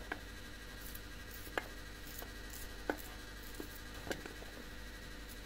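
A handful of short, sharp clicks and knocks, about six spread unevenly, over a low steady background hum.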